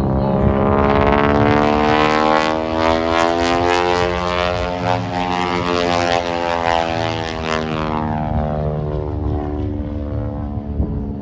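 Single-engine aerobatic propeller airplane flying a display pass, its engine and propeller note rising and then falling in pitch. It is loudest in the first few seconds.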